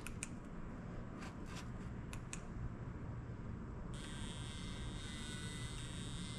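A few light clicks, then about four seconds in a Rigaku handheld laser metal analyzer starts firing to take a reading, with a faint, steady high-pitched whine.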